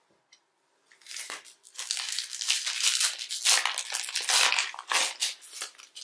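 Trading-card pack wrapper being opened and handled, a dense crinkling and crackling that starts about a second in.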